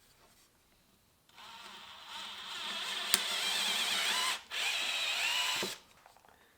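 Small Rikon wood lathe spinning a turned plate while 400-grit sandpaper is held against it, a wavering whine over a sanding hiss. It starts about a second in, grows louder, breaks off briefly, then stops suddenly near the end, with one sharp click partway through.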